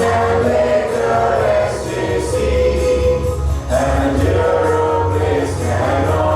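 A choir singing to musical accompaniment, with held notes over a steady bass.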